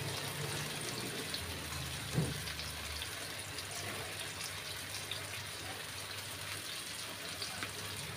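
Masala-coated fish sizzling in shallow oil in a flat pan: a steady frying hiss with small crackles, and one soft knock about two seconds in.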